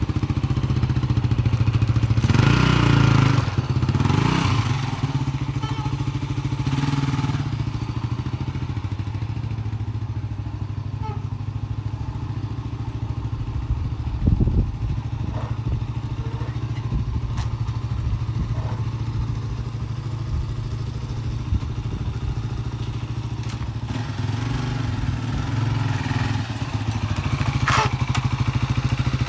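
Yamaha SRX250's single-cylinder engine, running on petrol poured straight into the carburettor, revving as the bike pulls away. It falls to a quieter steady running through the middle, with one thump about halfway, and grows louder again near the end as the bike comes back.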